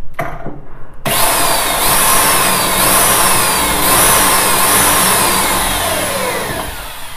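Corded electric drill running a bit through an L hinge's screw hole into a wooden door, making a pilot hole for the screw. The motor starts about a second in, its whine sagging and recovering about once a second as the bit bites, then winding down near the end.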